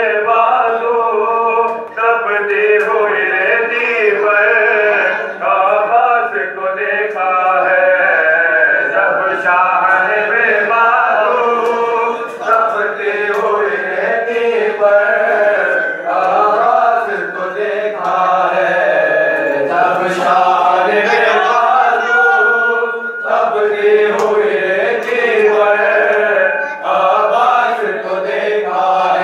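A group of men chanting a mourning lament (nauha) together, unaccompanied male voices in a continuous melodic chant.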